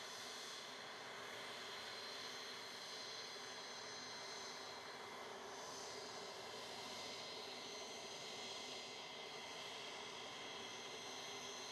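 Jet aircraft running on the ground, most likely the C-17 military transport standing with its loading ramp down: a steady rushing noise with several high whining tones held level.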